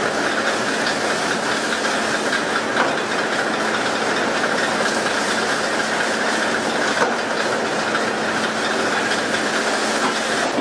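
Steady rushing hiss of water spray jetting from a pole-and-line tuna boat's hull onto the sea, mixed with the wash of the moving boat and a low engine hum underneath. Two small knocks come about three and seven seconds in.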